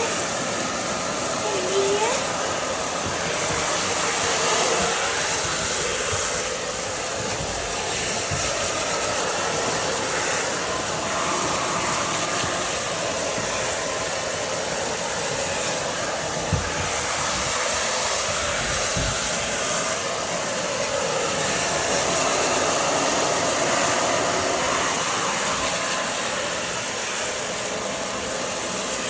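Handheld hair dryer blowing steadily, with a short rising squeak about two seconds in.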